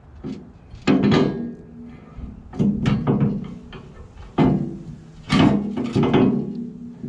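Steel clamp-on pallet fork clanking against a backhoe's loader bucket as it is fitted and clamped on: about half a dozen sharp metal knocks, each leaving a short ring.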